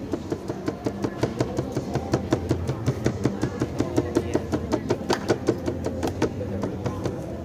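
Aerosol spray-paint can being shaken hard, its mixing ball rattling in a fast, even run of sharp clacks, about five a second.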